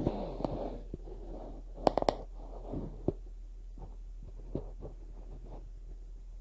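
Close handling noise on the camera's microphone: soft rustling and scratching with scattered clicks, including a quick cluster of sharp clicks about two seconds in, over a steady low hum.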